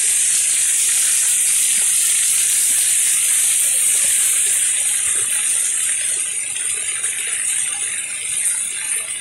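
Steady rain falling: an even hiss, a little softer over the last few seconds.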